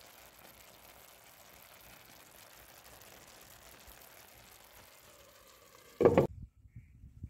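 Faint, steady sizzle of stuffed eggplant simmering in tomato sauce in a clay tagine. About six seconds in, a short loud thump, after which the sound cuts out.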